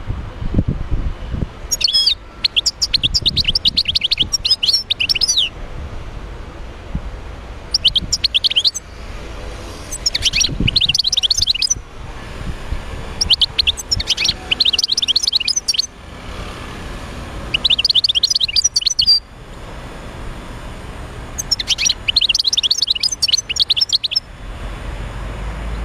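A caged wild-caught European goldfinch singing: six bursts of fast, twittering song a second or a few seconds long, separated by short pauses, over a low background rumble.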